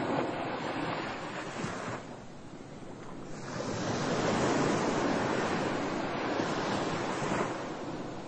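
Ocean surf: waves washing in and drawing back, one fading out about two seconds in and a bigger one building about three seconds in, then falling away near the end.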